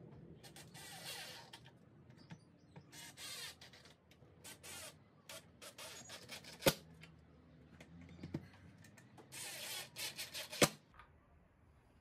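Workshop handling sounds from a wooden stool being assembled: three short scraping rasps, a scatter of small clicks, and two sharp knocks, one in the middle and one near the end.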